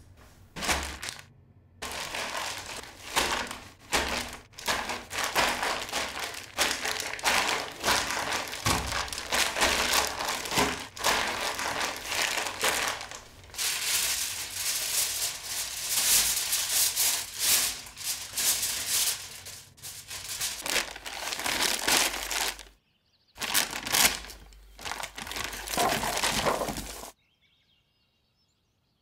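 Aluminium foil crinkling and crackling as hands spread and press a large sheet of it, in irregular bouts with short pauses; it stops near the end.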